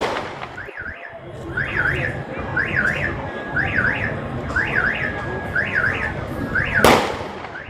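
Electronic alarm wailing in a repeating pattern, a quick double rise-and-fall of pitch about once a second, over street noise. Near the end comes one loud, sharp bang.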